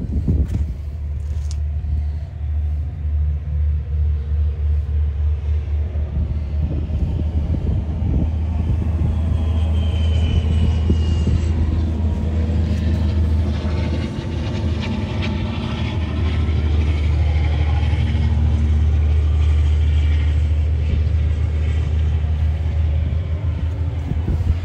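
A steady low rumble with gusty wind buffeting the microphone, choppiest in the first few seconds.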